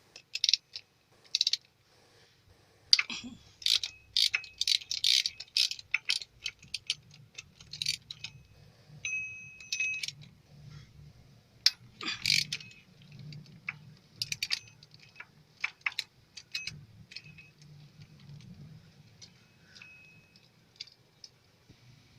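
Metal tools clinking and tapping against engine parts while the fuel injection pump is unbolted: irregular sharp clicks, some in quick runs, with a short high squeak about nine seconds in.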